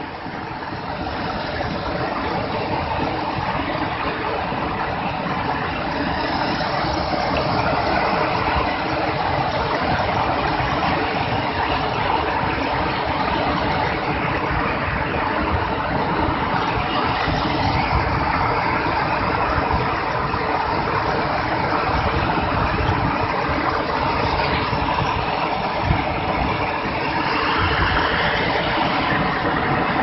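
Muddy flash-flood water rushing and churning in a steady, loud rush.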